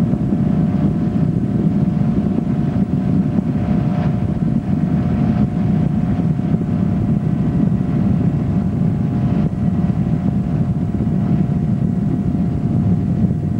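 Motorboat engine running steadily at speed while towing water-skiers, with wind buffeting the microphone.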